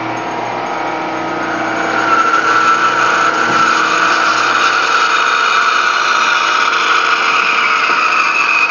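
Band saw running, its blade cutting into a thick wooden block; the sound grows louder about two seconds in as the blade bites into the wood, then holds steady.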